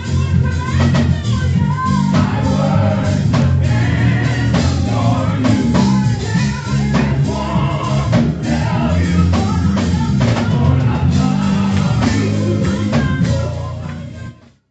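Gospel music with singing over a drum kit and a heavy bass line, with regular drum hits. It fades out to silence near the end.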